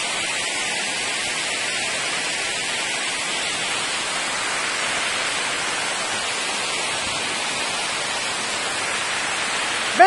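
Steady hiss of a waterfall, falling water rushing without break.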